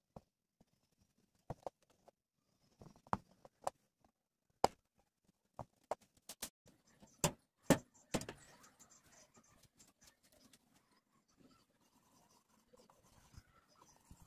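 Scattered sharp clicks and knocks of thin tinplate from a mustard-oil tin cabinet being handled, the loudest two close together about seven and eight seconds in, followed by a faint steady scratching on the metal.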